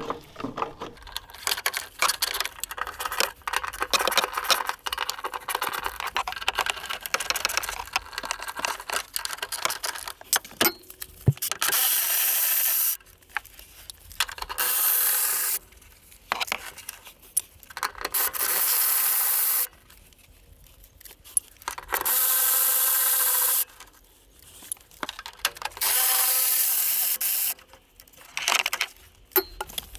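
Socket tool on a long extension with a swivel, loosening the 8 mm bolts of a fuel pump retaining plate: rapid ratchet clicking for the first ten seconds or so, then five steady runs of a second or two each as bolts are spun out.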